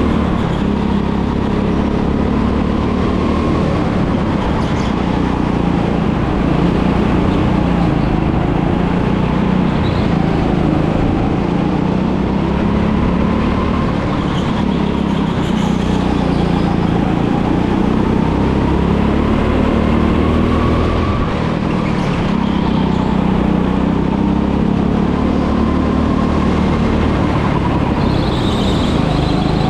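Go-kart engine running continuously, its pitch slowly rising and falling as the kart speeds up and slows through the corners.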